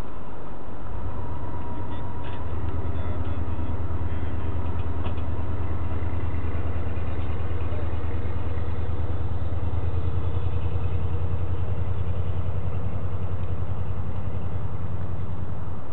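Boat engine running with a steady, pulsing low rumble that comes in about a second in and grows stronger a moment later.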